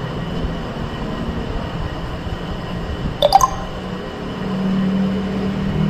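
Steady background hiss and low hum, which swells slightly about four and a half seconds in, with one short chirping blip a little over three seconds in.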